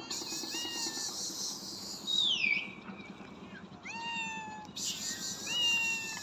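Several street cats meowing, with short calls coming every second or two. About two seconds in, a louder, higher call slides down in pitch.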